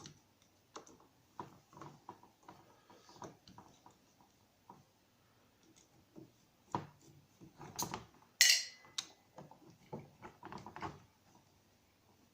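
Small metal parts and hand tools clicking and knocking on a workbench as a small outboard carburetor is taken apart. About eight seconds in comes one loud metallic clank that rings briefly, followed by a run of quick small clicks.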